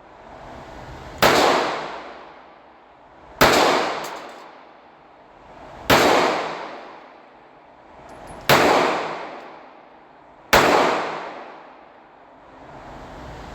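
Five gunshots, spaced about two to two and a half seconds apart, each followed by a long ringing tail that fades over about a second and a half.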